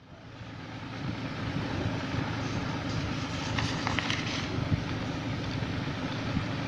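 Steady low rumble and hiss of background noise picked up by a phone microphone, fading in over the first second, with a few faint clicks or rustles about three to four seconds in.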